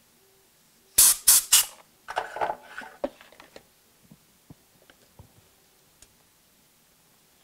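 Three quick, loud hissing spray bursts about a quarter second apart. They are followed by about a second of rustling, scraping handling noise and then a few faint clicks.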